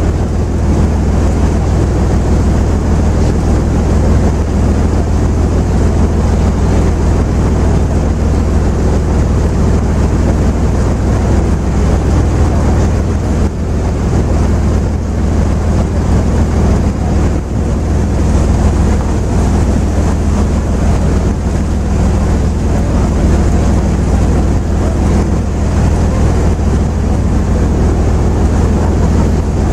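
River cruise boat's diesel engine running with a steady low hum, with wind buffeting the microphone.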